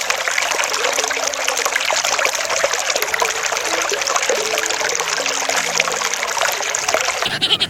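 Steady rush of running water, like a trickling stream.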